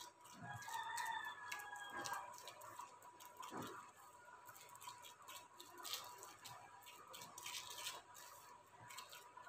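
Faint crinkling of an oiled plastic sheet and soft pats as fingers press and spread a ball of anarsa dough out flat on it.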